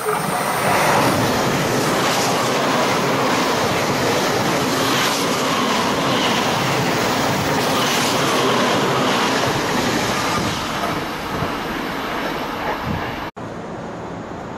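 Train running past on the rails, a loud rumble and clatter with brief falling wheel squeals. It cuts off suddenly near the end and a quieter steady train rumble follows.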